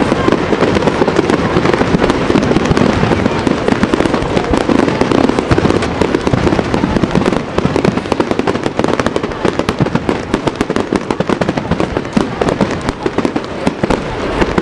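Fireworks going off: a dense, continuous crackle of many rapid small bangs and pops.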